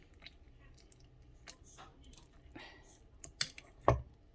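Light clicks and taps of a jar and kitchen things being handled, with a sharp click about three and a half seconds in and a heavier knock just before the end.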